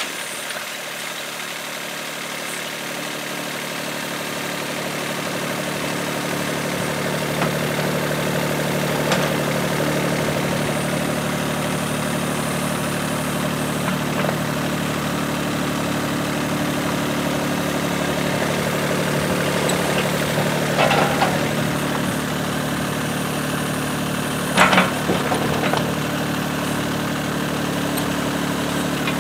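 Yuchai YC15-7 mini excavator's diesel engine running steadily while the machine digs, its hum swelling over the first few seconds. A few sharp knocks break through it, the loudest about three-quarters of the way in.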